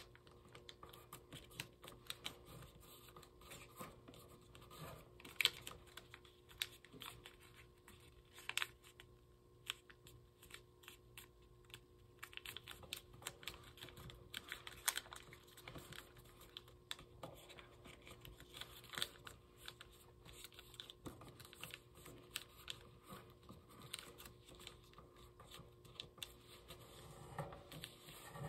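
Origami paper being folded by hand: irregular crisp clicks and crinkles as creases are pressed and flaps are shaped, with soft rustling between them.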